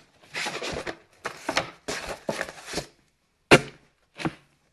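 Trading-card packs and their cardboard box being handled, wrappers rustling and crinkling in three short stretches. Then a sharp knock, the loudest sound, and a smaller knock about a second later, as the stack of packs is set down and squared on the table.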